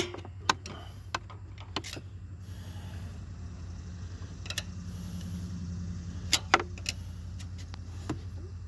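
A steady low hum with scattered sharp metallic clicks and clinks, a few seconds apart, two of them close together.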